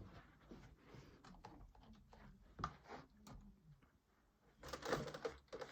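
Faint scattered clicks and rustling, typical of handling noise from a hand-held camera, with a louder stretch of rustling near the end.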